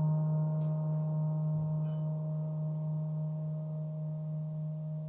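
30-inch TTE KongKlang Earth gong, a flat gong, sounding a deep steady hum with fainter higher overtones held above it, slowly fading.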